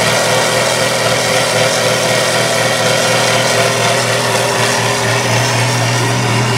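Big lifted mud trucks' engines running hard and steady under load in a truck pull, one of them a diesel at full throttle.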